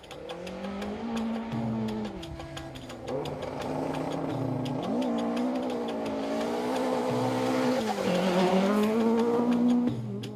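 Ford Escort Mk2 rally car's BDG four-cylinder engine at full throttle, its pitch climbing and then dropping sharply at each gear change about three times, getting louder as the car comes close near the end.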